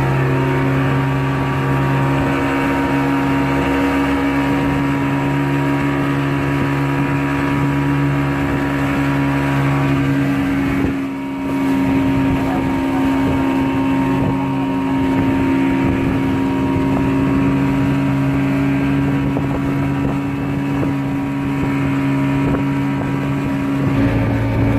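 A small motor passenger boat's engine running steadily, a constant droning note over a rushing noise, with a brief dip about eleven seconds in.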